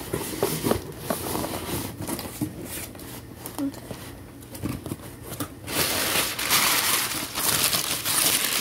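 Cardboard box flaps being handled, with scattered rustles and taps, then, about six seconds in, brown packing paper inside the box being crumpled and pulled about, louder and continuous.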